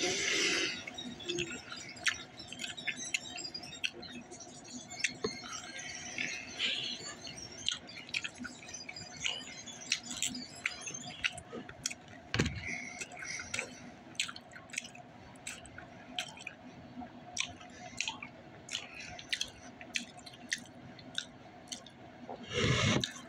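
A person chewing chicken nuggets close to the microphone: irregular wet mouth clicks and smacks, with a louder rush of noise at the start and again near the end.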